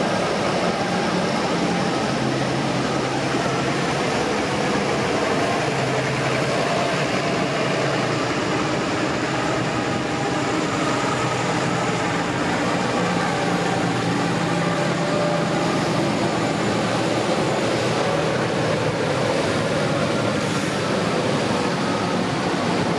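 Large modern farm tractors, a Case IH, a New Holland and a JCB Fastrac, driving past one after another with their diesel engines running steadily.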